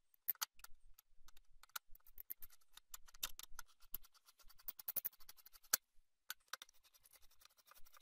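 Flat-bladed screwdriver turning the spring-loaded screws of a CPU heatsink: a run of faint, irregular metallic clicks and scrapes.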